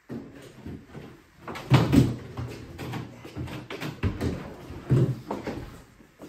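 A hotel room door and a large plastic pet carrier knocking and scraping as the carrier is dragged in through the doorway, with irregular bangs, the loudest about two seconds in and again about five seconds in.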